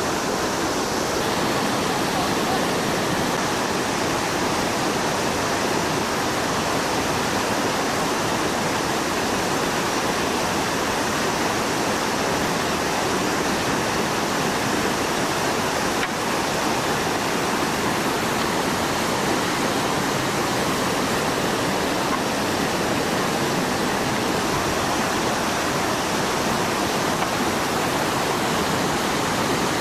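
Whitewater rapids in a steep boulder creek: a steady rush of water tumbling over rocks, even and unbroken throughout.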